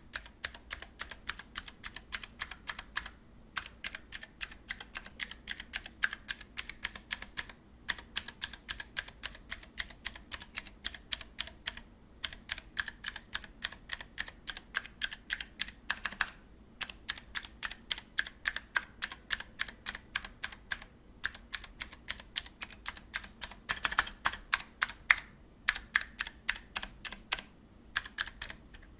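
Vortex Vibe mechanical keyboard with clicky Cherry MX Blue switches being typed on: a rapid, continuous patter of sharp keystroke clicks, with brief pauses every few seconds.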